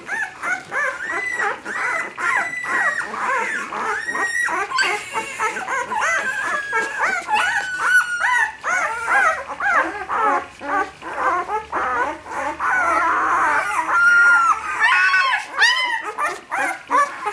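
A litter of ten-day-old puppies whimpering and squealing together, a continuous stream of short, high, overlapping cries.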